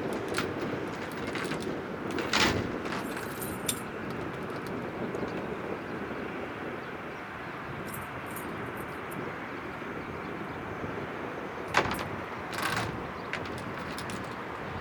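Steady rumble of a Cessna 172's piston engine running at a distance. A few sharp clicks and short metallic jingling rattles sound close to the microphone, at about two and a half seconds, near four seconds, around eight seconds and near twelve seconds.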